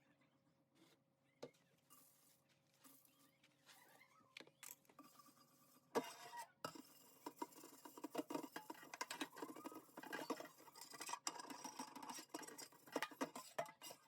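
Faint, rapid rubbing and scrubbing strokes of hand cleaning, which start about six seconds in after a few soft clicks.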